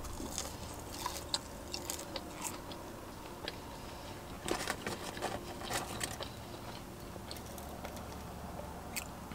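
A person chewing and biting fried fast food close to the microphone: scattered soft crunches, clicks and wet mouth sounds over a low steady hum.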